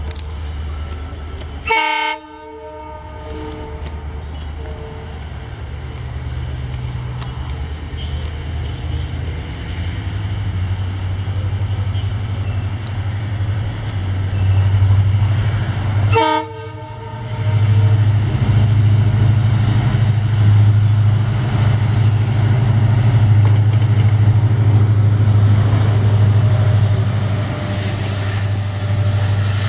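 Indian Railways EMD WDP4-series diesel locomotive accelerating under load, its engine drone building as it goes, with a high whine rising in pitch. A short horn blast sounds about 2 seconds in and another about 16 seconds in, and the engine passes close near the end.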